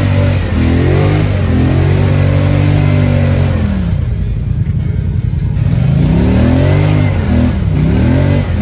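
ATV engine revving hard as the quad churns up a deep mud bank: held high for about three seconds, easing off about four seconds in, then revving up and down in quick surges near the end.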